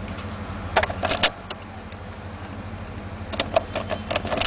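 Two bursts of light clicking and rattling, about a second in and near the end, as the car's instrument-cluster buttons are pressed to step through the display, over a steady low hum inside the car.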